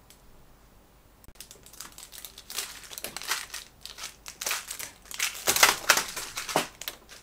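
Tic Tac mints crunching and clicking close to the microphone in a rapid, irregular run. It starts about a second and a half in and is loudest a little past the middle.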